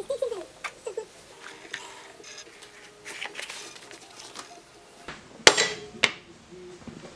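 Tools being handled on a wooden workbench: a few short squeaks in the first second, light taps and clicks, then two sharp knocks about half a second apart as a steel ruler and marker are set down on the bench.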